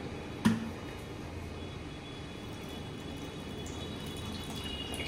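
A single knock about half a second in, then a faint steady hiss with a thin high tone joining it.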